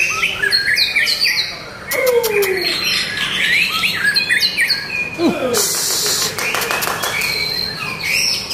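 Caged white-rumped shama singing a varied run of clear whistles, sliding notes and quick trills, with a short harsh rasp and clicks about halfway through.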